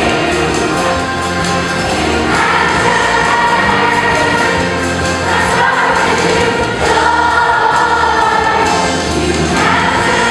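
Upbeat Christian worship song with many voices singing, playing loud and without a break.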